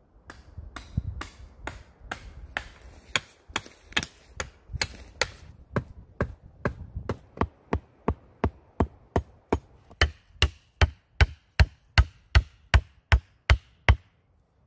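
Sharp wooden strikes repeated over and over as a stick is chopped or knocked in bushcraft work; irregular at first, then a steady, louder run of about three strikes a second.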